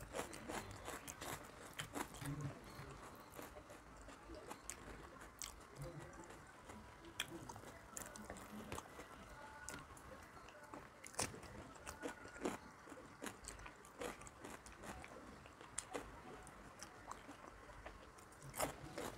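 A person eating by hand: chewing and crunching fried papad, with irregular sharp clicks and crackles as fingers mix rice on a steel plate.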